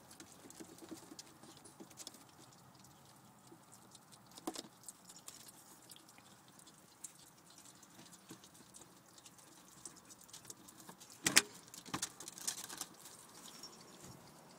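Ferrets chewing and tearing at a raw chicken carcass: a quiet string of small wet clicks and crunches. A couple of sharper knocks come about three quarters of the way through.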